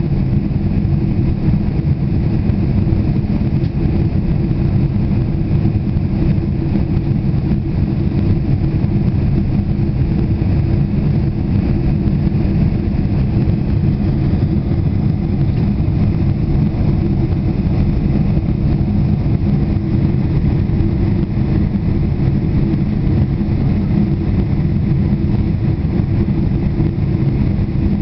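Boeing 747 cabin noise in flight on approach to landing: the steady low rumble of the jet engines and airflow heard from inside the passenger cabin, with a faint low hum running through it.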